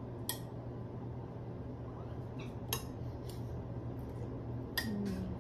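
Metal serving tongs and a fork clinking against a glass bowl of lamb chops, a handful of separate sharp clinks a second or more apart, over a low steady hum.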